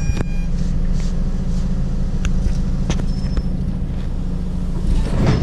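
Mercedes-Benz city bus's diesel engine running steadily, a low hum heard from inside the bus near the front. There is a knock right at the start, and a short rise of hissing noise just before the end.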